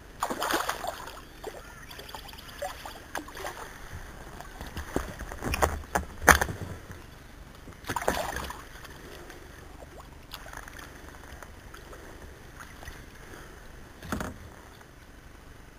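A kayak on the water: a few swishes of water, and several sharp knocks, the loudest about six seconds in, like gear or a paddle striking the hull.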